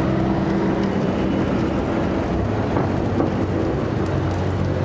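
Street traffic: cars passing and idling, a steady rushing noise with a low engine hum underneath.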